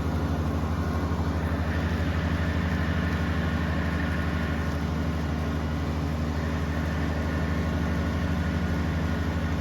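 Tractor engine running steadily at a constant speed, with an even low throb.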